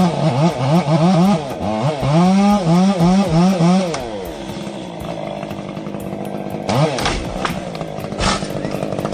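V8-engined chainsaw revving hard in quick rises and falls of pitch for about four seconds, then running steadier at a lower pitch.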